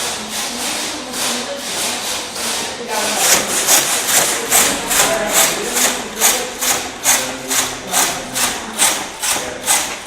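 Rhythmic back-and-forth rubbing or scraping strokes, about two to three a second, becoming stronger and more regular about three seconds in.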